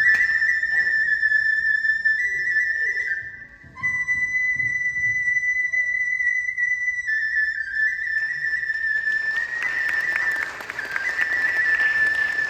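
Japanese bamboo transverse kagura flute playing a slow, high melody of long held notes, stepping between pitches, with a brief break about three and a half seconds in. From about nine seconds in a hissing, shimmering noise joins under the flute.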